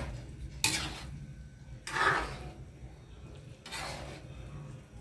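A ladle stirring chicken and potatoes in a pan of simmering broth, scraping against the pan three times.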